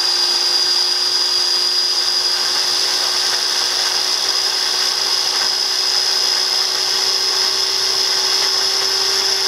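Philips electric mini chopper running steadily, its motor giving a constant high whine as it grinds garlic and ginger into a paste.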